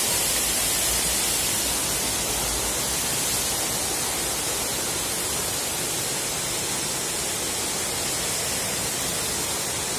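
Small waterfall spilling over a stone wall into a river: a steady rush of falling water.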